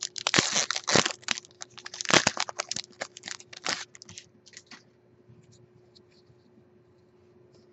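Foil booster pack wrapper crinkling and tearing in the hands, a dense crackle for about four seconds that thins out to a few faint ticks.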